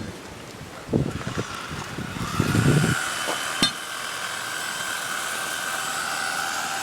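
A few knocks in the first three seconds, then a steady engine whine that rises briefly about two seconds in and holds.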